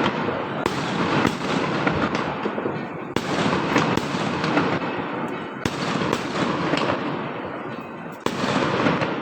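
Fireworks going off in a continuous barrage: dense overlapping bangs and crackling, with sharper, louder reports standing out every second or two.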